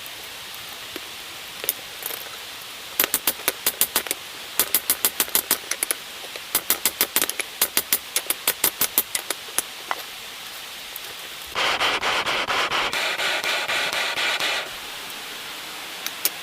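Hammer striking metal in quick runs of sharp blows, several a second, with short pauses between runs. Near the end the blows stop and a steady rushing hiss runs for about three seconds.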